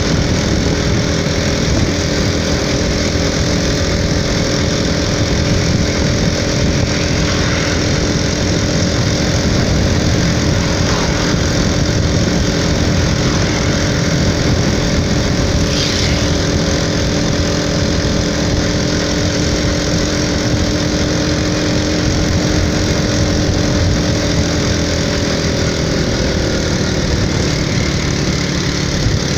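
Motorcycle engine running steadily while cruising, over a dense rush of wind and road noise. The engine note drops slightly near the end as the bike eases off.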